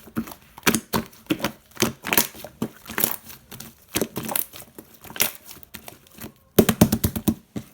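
Two-layer slime being squeezed and pressed by hand, giving irregular sticky clicks and crackles, with a quick run of them near the end.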